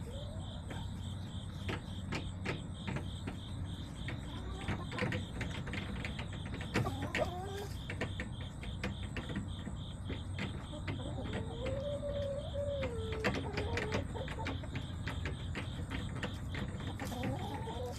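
Backyard hens making soft clucks and drawn-out murmuring calls, a longer call about twelve seconds in, with scattered sharp taps, over the steady pulsing chirp of crickets.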